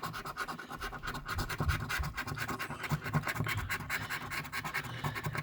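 Coin or scraper scratching the latex coating off a paper lottery scratch ticket in quick, rhythmic back-and-forth strokes, several a second.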